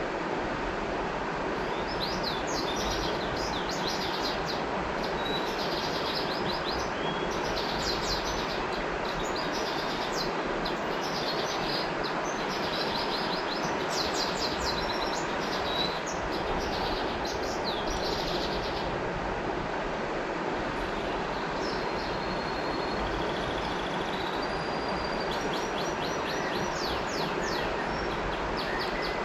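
River water flowing with a steady rush, and small birds chirping in quick, repeated notes above it. The chirping thins to a few scattered calls for a few seconds past the middle, then picks up again near the end.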